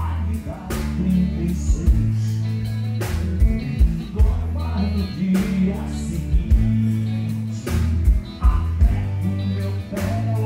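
A live rock band playing through a PA: a steady bass line, regular drum hits and electric guitars.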